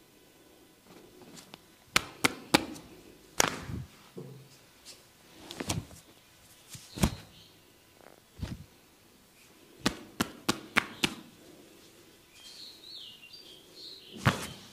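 A barber's massage strokes: a series of sharp, irregular smacks and cracks, some coming in quick runs of three to five.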